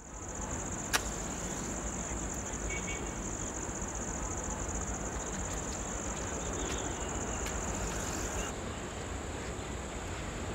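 Insects chirring steadily in a continuous high-pitched trill, over a low outdoor background hiss. A single sharp click sounds about a second in.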